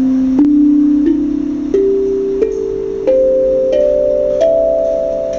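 Steel tongue drum struck with a mallet, playing a rising scale: about seven notes, each higher than the last and a little under a second apart, ringing on into one another and slowly fading.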